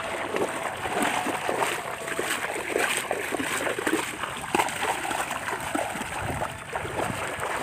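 Irregular splashing and sloshing of legs wading through shallow, muddy water.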